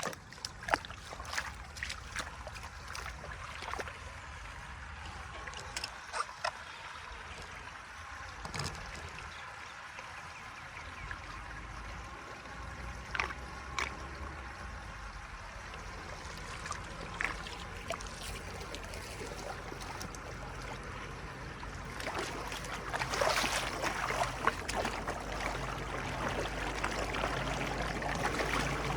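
Floodwater running and gurgling as it drains, with scattered clicks and knocks, busier and louder from about twenty-two seconds in.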